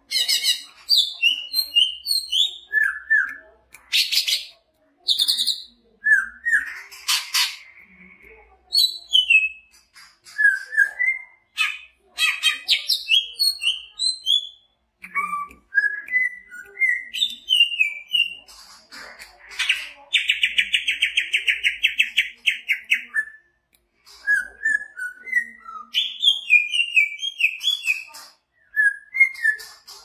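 Male greater green leafbird (cucak hijau) singing a varied song of quick whistled and chirped notes in short phrases, with a fast rattling trill lasting about three seconds, about twenty seconds in.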